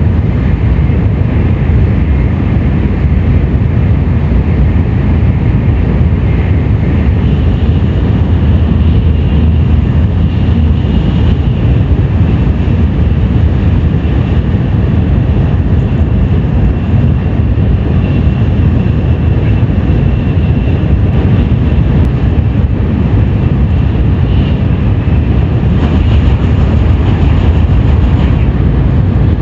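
Tokaido Shinkansen train running at speed, heard inside the passenger car: a loud, steady rumble with a faint high whine over it.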